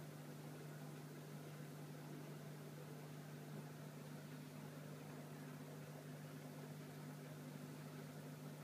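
Faint, steady low hum of aquarium equipment running, over an even hiss.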